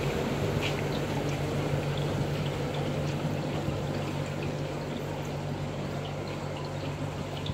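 Water trickling and gurgling against the bow of a horse-drawn canal narrowboat as it is towed slowly along, a steady wash with small splashes and a low steady hum underneath.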